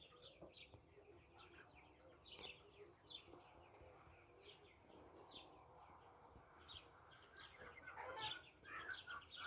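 Small birds chirping in many short, high, repeated chirps, with chickens clucking louder near the end.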